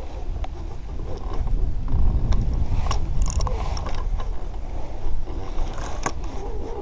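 A carp spinning reel being cranked while a hooked carp is played, its gears turning with scattered sharp clicks over a low rumble.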